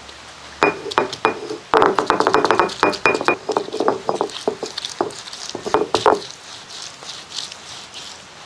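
Garlic cloves being crushed on a stone grinding slab with a stone roller: a quick run of stone-on-stone knocks and crunches for about five and a half seconds, then it goes quieter.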